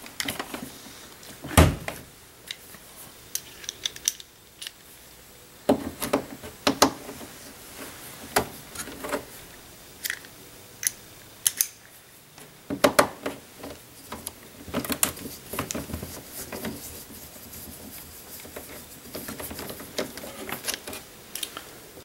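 Scattered small clicks and light rattles of a screw tool and the machine's plastic housing being handled as an oval head screw is turned out of a Jura ENA 4 espresso machine with an oval head key.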